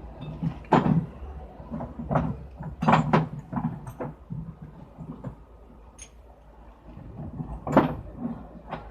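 Irregular knocks and clanks from work on a large forklift tyre and its wheel, about eight to ten strikes. The loudest come about a second in and near the end, with a quick cluster around the middle.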